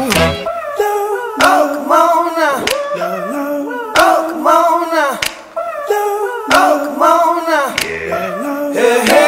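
Background pop music: a sung vocal line over sharp percussive hits about every second and a bit, with the bass mostly dropped out.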